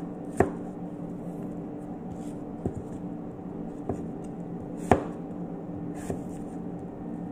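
Kitchen knife cutting through apple and knocking on a cutting board: a handful of sharp, widely spaced knocks, the loudest about five seconds in, over a steady low hum.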